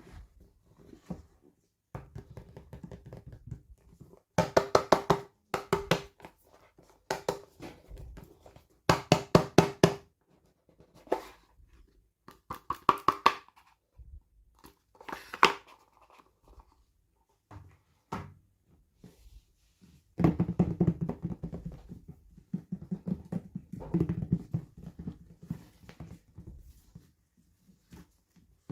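Hands handling and opening toy packaging, in irregular bursts of fast crackling, clicking and rustling with occasional knocks.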